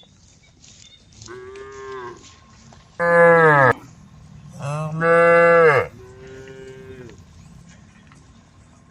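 Cows mooing: four calls in a row, a fainter one, two loud ones, then another fainter one, the loud calls dropping in pitch as they end.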